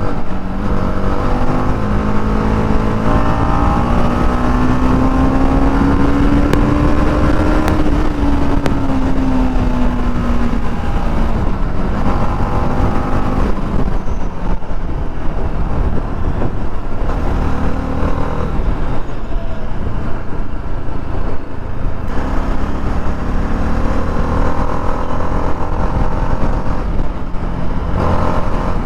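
TVS Apache RR 310's single-cylinder engine running through its stock exhaust while riding, its pitch climbing slowly to about eight seconds in and then dropping back, then rising and falling again in smaller changes. Wind buffets the microphone throughout.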